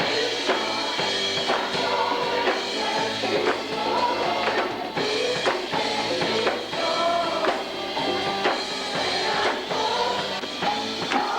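Live church worship music: voices singing together over a band with drum kit and tambourine keeping a steady beat, about two drum strokes a second.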